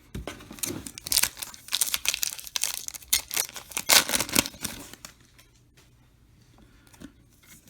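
A trading-card pack's plastic wrapper being torn open and crinkled for about five seconds, then quiet.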